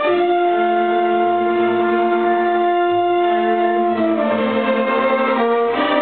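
String orchestra of violins and cellos playing: a long chord is held for about four seconds, then the parts step down to new notes near the end.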